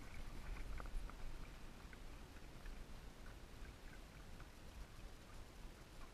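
Faint water splashing and dripping beside a kayak, with a few small ticks mostly in the first second, over a low steady rumble.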